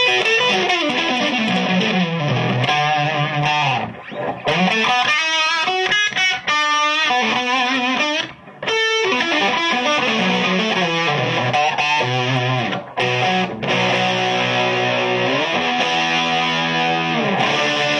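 Overdriven electric guitar through a Victoria VIC105 'Ammo' EL84 valve amp at full 10-watt power with its boost switch on, playing rock and blues licks with bent and sliding notes. There are a couple of brief breaks between phrases.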